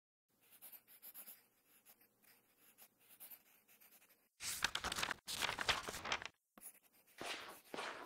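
Pencil scratching on paper. It is faint and intermittent at first, then turns into loud, vigorous scribbling about four seconds in, with a short break before it resumes near the end.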